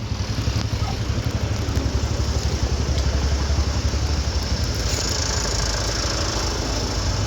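A motor vehicle's engine running steadily, a low pulsing rumble.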